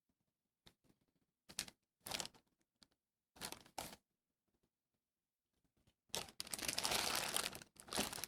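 Packaging being handled: a few short crinkles and scrapes, then a longer, denser stretch of crinkling starting about six seconds in.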